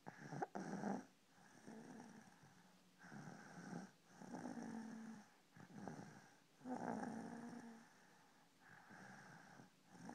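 Snoring: a run of rough, rattly breaths repeating about eight times in ten seconds, several with a low steady hum, and a short sharp catch about half a second in.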